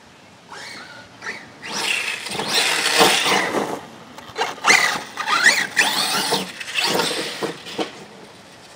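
Arrma Notorious 6S brushless RC truck driving across grass. Its electric motor whines up and down in pitch as it speeds up and passes close by, with rushing tyre and grass noise. It comes in about a second and a half in, is loudest mid-way, and fades near the end.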